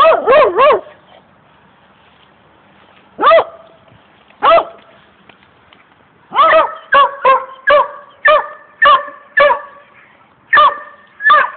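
Dog barking in short, sharp barks: three quick barks at the start, two single barks a few seconds in, then a run of about eight barks at roughly two a second, and two more near the end.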